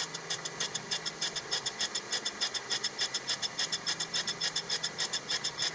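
Surface grinder's abrasive wheel grinding a high-speed steel blank: a steady motor hum with a fast, even pulsing hiss of wheel on steel, about seven pulses a second.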